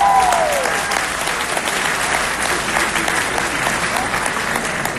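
Audience applauding, with one person's high cheer gliding up and down and dying away in the first second; the clapping then carries on and slowly thins.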